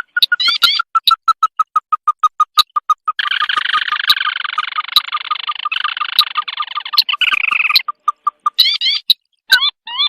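Recorded crake calls of the kind played as a bird-trapping lure: a fast series of sharp ticking notes, a few short rising whistles about half a second in, and a dense rolling trill from about three to eight seconds in.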